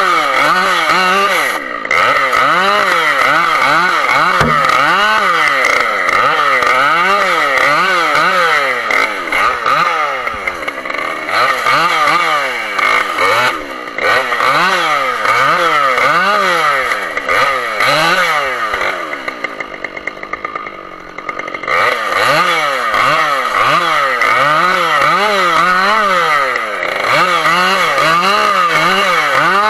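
A Husqvarna two-stroke chainsaw limbing a felled tree, the engine revving up and dropping back over and over, a quick blip of the throttle for each branch cut. About two-thirds of the way through it eases toward idle for a couple of seconds, then the revving resumes.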